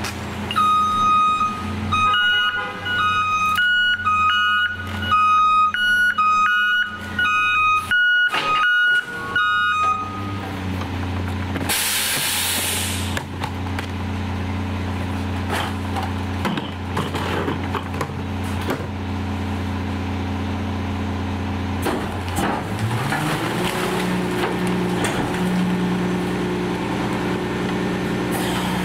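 McNeilus rear-loader garbage truck's backup alarm beeping in a steady pulsing pattern for about ten seconds, then a short loud air-brake hiss. The engine runs steadily, then revs up and holds the higher speed near the end as the hydraulic packer starts its cycle.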